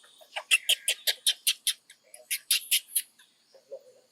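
An animal's call: two quick runs of short, high-pitched chirps, about six a second, with a brief pause between them.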